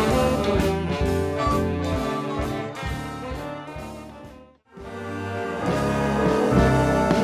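Big band jazz with trumpets and trombones playing over a rhythm section. It fades out to a moment of silence a little past halfway, and a new big band piece starts up right after.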